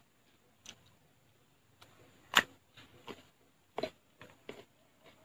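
Eating sounds of young coconut flesh being chewed and pulled from the halved coconut in its bowl: a string of short, separate clicks and smacks, the loudest about two and a half seconds in.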